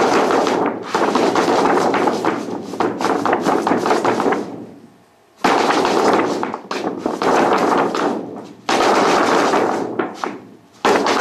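Large sheet of stiff paper crackling and rattling in dense rapid bursts as a cat paws and pushes against it, broken by short lulls, the longest about five seconds in.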